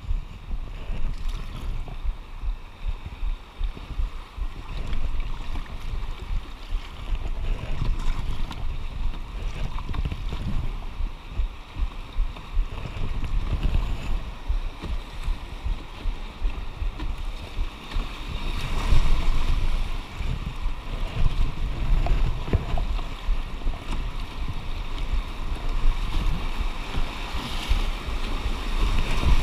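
Rushing river water around an open canoe being paddled downstream, with wind buffeting the microphone. The hiss of whitewater grows louder near the end as the canoe reaches a rapid.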